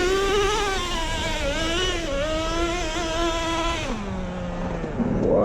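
Traxxas T-Maxx nitro RC truck's small two-stroke glow engine held at high revs, its pitch wavering as the throttle is worked with the truck stuck in the snow. About four seconds in it drops to a lower steady note, then revs up briefly near the end.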